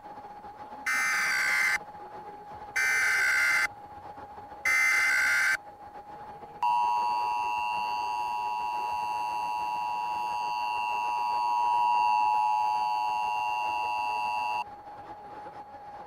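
Emergency Alert System tones: three short bursts of SAME header data, each about a second long with about a second between them, then the two-tone EAS attention signal held steady for about eight seconds before cutting off. Together they announce an administrative message from civil authorities.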